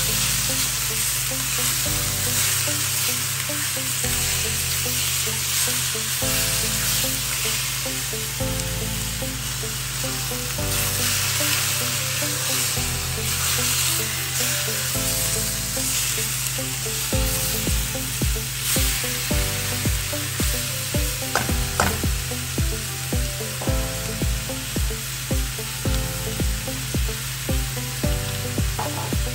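Pork chunks and onions sizzling in a hot stainless steel wok, stirred and turned with a silicone spatula. Background music plays underneath, with a steady beat of about two a second from a little past halfway.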